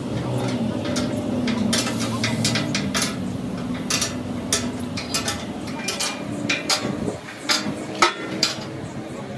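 Steel spanner clinking against the bolts and steel plate of a tractor front blade as the nuts are tightened: irregular sharp metallic clicks, with a low steady hum underneath that fades out about seven seconds in.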